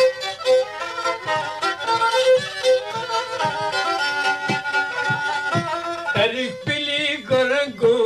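Turkish folk song recording: a bowed fiddle plays the melody over a steady drum beat. A man's voice begins singing about six seconds in.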